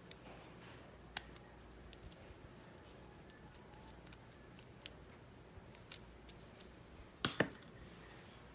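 Small clicks and taps from hands handling a plastic battery-operated flameless LED candle, with a sharp click about a second in and two louder knocks near the end as it is set down on a shelf.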